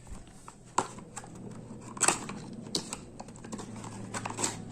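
Hands handling plastic bottles and packaging: irregular sharp clicks and taps, with a faint steady low hum underneath.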